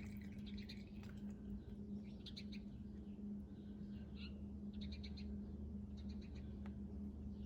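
Small bird chirping in short bursts of several quick high notes, about five times, over a steady low electrical hum.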